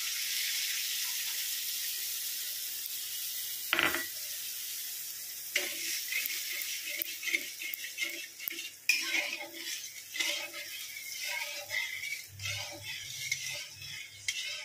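Hot oil in a metal kadai sizzling as a whisked yogurt, mustard-paste and salt mixture is poured in, with a single knock about four seconds in. The sizzle then dies down under a metal spoon stirring the curry and clinking and scraping against the pan.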